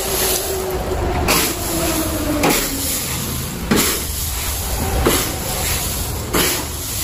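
Dried green cardamom pods being shoved and scraped across a concrete floor with a flat wooden board: a steady rattling rustle of the pods, with a sharper scrape about every second and a quarter as each stroke of the board begins.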